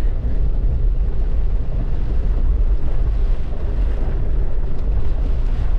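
Strong storm wind buffeting the microphone: a steady, loud low rumble with a fainter hiss above it.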